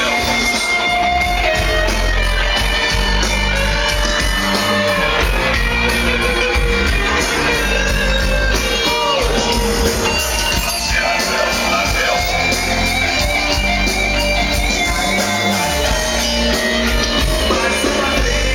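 Music with a steady, even beat and heavy bass.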